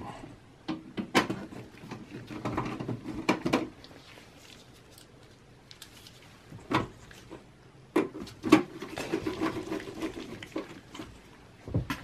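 Hands working on a small desktop PC case with a screwdriver: several sharp clicks and knocks, with two stretches of scraping and rubbing, the first about a second in and the second about eight seconds in, and a knock near the end as the case is picked up.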